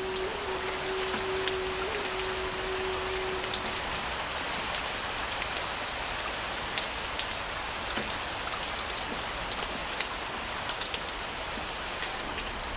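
Steady rain falling and splashing on water, with scattered sharper drop hits. A steady held tone runs under it for the first four seconds or so, then stops.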